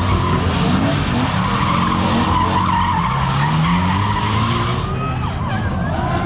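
Drift car sliding, with its tyres squealing and its engine revving up and down.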